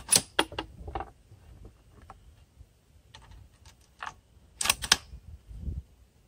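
Bolt of a Savage bolt-action .243 Winchester rifle being worked between shots: a series of sharp metallic clicks and clacks, with a loud cluster at the start and the loudest burst of clacks about two-thirds of the way through.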